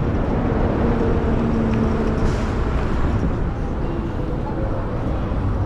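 Steady city street traffic: vehicle engines running on the road, a city bus among them close by.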